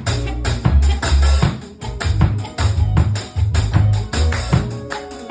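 Music with a steady beat: tambourine and drums over a heavy bass line.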